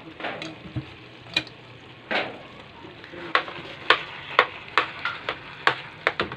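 A wide pan of biko, glutinous rice in a sweet coconut-milk syrup, cooking hot with a steady sizzle. Sharp clicks come over it, sparse at first and then about two a second from about halfway through.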